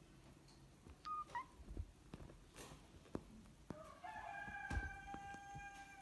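A rooster crowing in the background: one long held call that starts near the end and runs on, over soft taps and rustles of a hand petting a kitten on a quilted bedspread. A brief high chirp sounds about a second in.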